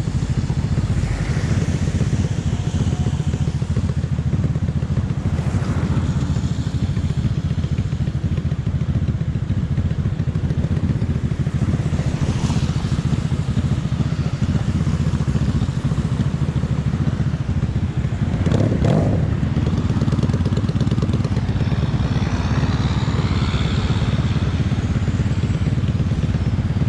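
Honda Magna VF750's V4 engine running steadily while the motorcycle is ridden, with a brief louder swell about two-thirds of the way through.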